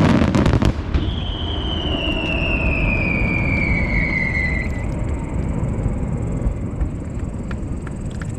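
Fireworks crackling in a rapid string of pops that stops within the first second, then a whistling firework gives one long whistle that falls steadily in pitch for about four seconds.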